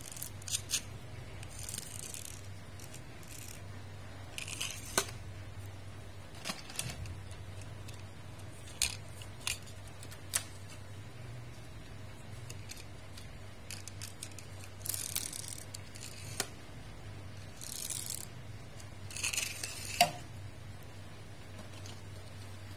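Small metal toy cars handled and set down on a hard floor: scattered sharp clicks and brief scraping of wheels and bodies, over a steady low hum.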